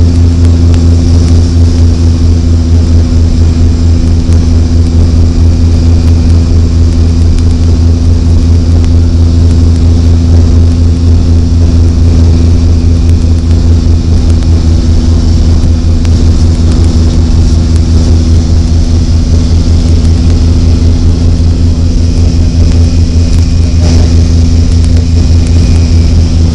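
Cabin noise of a de Havilland Canada DHC-6 Twin Otter on approach: its two PT6A turboprop engines and propellers giving a loud, steady drone with a deep hum and a faint high whine above it.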